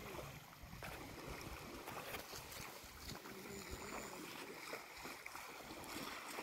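Wind buffeting the microphone over small waves washing in the shallows at the water's edge.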